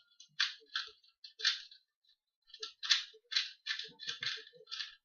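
A 2x2 Rubik's cube being turned fast during a speed solve: short plastic clicks from the layers snapping round, about two or three a second, with a short pause about two seconds in.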